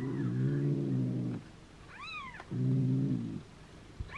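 Two-day-old kitten giving one short, high mew that rises and falls, about two seconds in, while its rear is wiped with a cotton pad. A louder low hum sounds in two stretches, the first running into the start and the second just after the mew.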